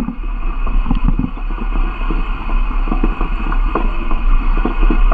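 Mountain bike riding fast down a dirt woodland trail, as heard by a camera on the rider or bike: a steady, loud rumble of tyres on the ground and wind buffeting the microphone, broken by frequent knocks and rattles from the bike over bumps.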